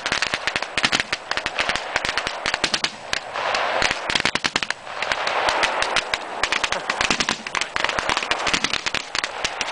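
Automatic gunfire: many rapid shots crackling in quick, irregular bursts, with a short lull about five seconds in.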